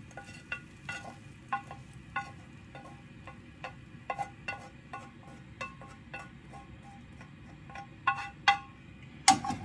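Wooden spatula knocking and scraping against a frying pan as stir fry is pushed out onto a plate, short taps two or three a second, each with a brief metallic ring, over a faint sizzle from the hot pan.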